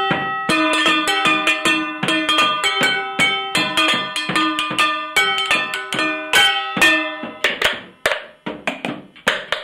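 Improvised kitchen drum kit being played: cooking pots and other kitchen things struck with wooden spoons in a quick, steady rhythm, the pots ringing with short metallic tones. The beat loosens into sparser strikes near the end.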